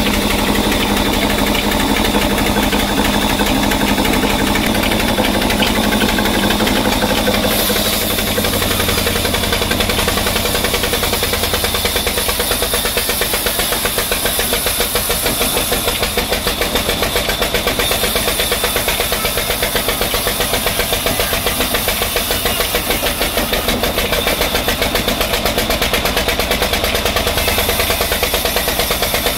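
Large vertical band saw running while a log is fed through its blade, ripping a slab off it. A loud, steady mechanical drone with a fine regular pulse, whose tone shifts about eight seconds in.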